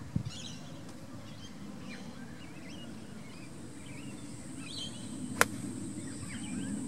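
Small birds chirping over a steady high-pitched insect drone and low outdoor noise. A dull thump comes just after the start, and a single sharp click about five and a half seconds in.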